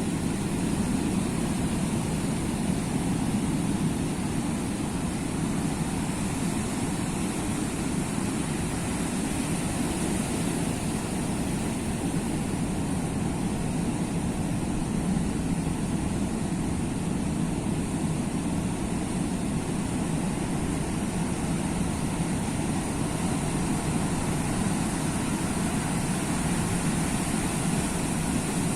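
Sea surf: a steady, even rush of waves with no single wave breaking out from the rest.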